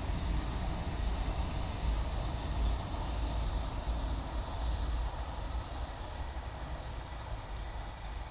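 Shinkansen bullet train passing at speed on an elevated concrete viaduct: a steady rushing noise with a low rumble, fading in the second half.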